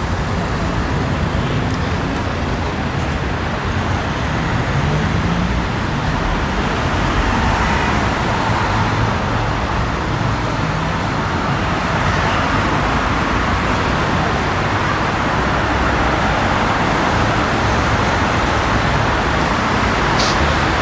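Steady city road traffic: motor vehicles passing continuously, with one engine rising in pitch a few seconds in.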